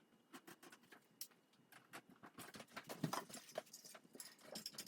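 Faint, irregular little clicks and taps of hands handling electrical wires and the plastic junction box of a slim LED recessed downlight. The clicks come more often toward the end.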